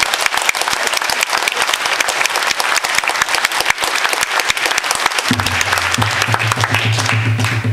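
Audience applauding. About five seconds in, a low, steady drum sound from the bodhran comes in under the clapping, and the applause dies away near the end.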